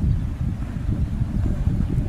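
Wind buffeting the microphone: an uneven low rumble with no calls or voices.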